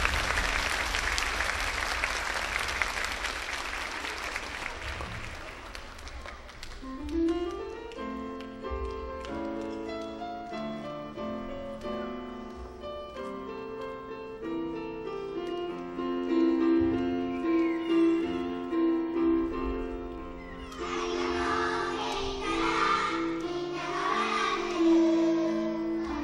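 Audience applause dies away over the first few seconds. Then a grand piano plays an introduction, and about twenty seconds in a choir of young children starts singing with the piano.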